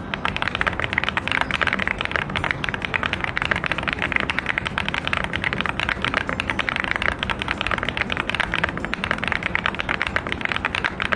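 Fast, continuous typing on a mechanical keyboard fitted with Lichicx Torch heavy-duty linear switches. It is a dense run of quick key clacks with no pauses.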